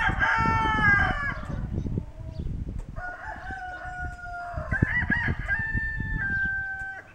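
Kencana rooster, a homegrown Ameraucana × Barred Rock cross, crowing: the end of one crow in the first second and a half, then a second long crow from about three seconds in, drawn out in several held notes.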